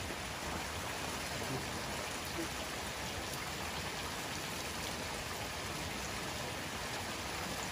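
Steady rush of flowing water from a mountain stream, an even hiss.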